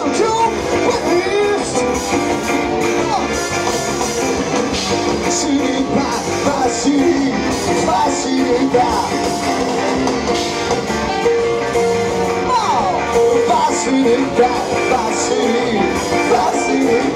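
Live rock band music, guitar prominent, with bending melodic notes throughout.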